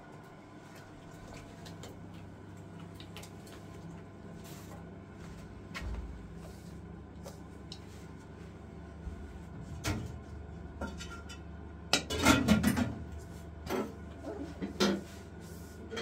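Kitchen clatter of metal bowls and utensils around hands kneading flour dough in a metal bowl. A few single knocks come first, then a loud burst of clatter about twelve seconds in and two more knocks after it, over a faint steady hum.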